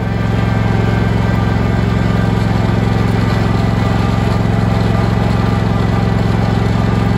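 John Deere riding lawn tractor's engine running steadily at one constant speed while it tows a block-weighted wooden pallet over dirt, heard close up from the driver's seat.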